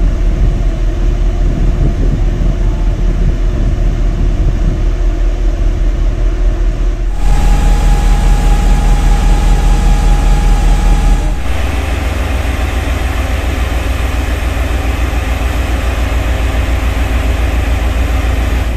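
Diesel locomotive engine running steadily with a heavy low rumble. The sound changes abruptly twice, about seven and eleven seconds in, with a steady higher whine present between those two changes.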